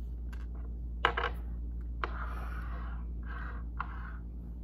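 Small blocks being set down and slid on a tabletop: a sharp click about a second in, another about two seconds in, then a few short scraping rubs.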